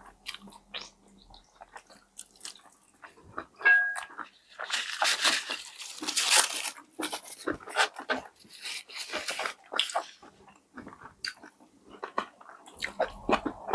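Crunching bites into crispy KFC fried chicken and chewing, close to the microphone, as a string of crackly crunches that are densest and loudest about five to seven seconds in.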